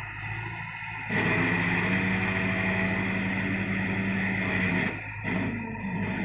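Backhoe loader's engine running, revving up about a second in, holding high for about four seconds, then dropping back.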